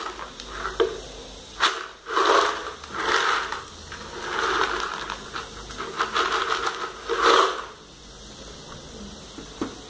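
Soya chunks in a pan of boiling water: bubbling and hissing, with a few sharp clicks and uneven swells in the first eight seconds, settling to a steady hiss near the end.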